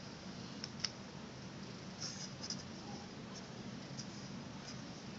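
Marker drawing short strokes on paper, a few faint scratches about a second and two seconds in, over a steady low room hum.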